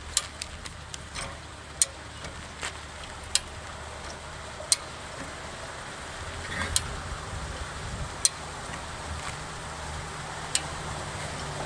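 Red high-lift jack being pumped to raise a sluice gate's pull rod, its mechanism giving a sharp click about every one to two seconds with each stroke of the handle. A hiss builds toward the end.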